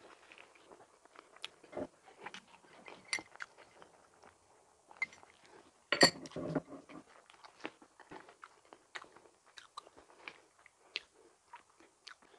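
A person chewing and biting soft donut: scattered wet mouth clicks and small crunches, with a louder burst of chewing about halfway through.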